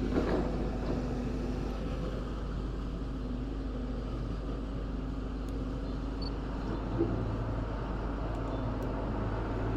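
An engine running steadily under a low outdoor rumble, with a faint wavering drone and a small knock about seven seconds in.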